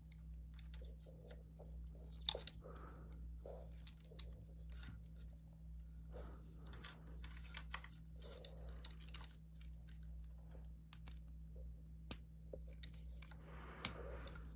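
Hard plastic toy parts being handled: scattered light clicks and rustles as blasters are fitted into the hands of a Transformers Studio Series 86 Ratchet action figure, over a steady low hum.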